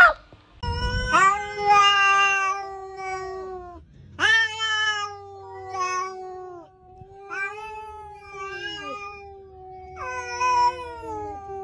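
Cats meowing: four long, drawn-out meows one after another, each held for a second or more with short breaks between them.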